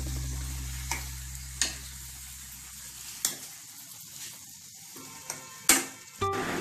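Metal spatula stirring and scraping vegetables frying in a steel kadai, with a light sizzle and several sharp clinks of the spatula on the pan, the loudest near the end. A low hum fades out about three seconds in.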